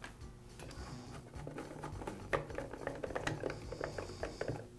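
Small clicks and taps of a Poulan chainsaw's plastic top cover being pressed into place and fastened. A busy run of light ticks and knocks starts about a second and a half in.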